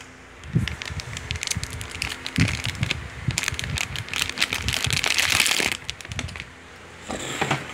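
Trading cards being handled: a string of small clicks and taps, with a denser rustle lasting about a second around five seconds in.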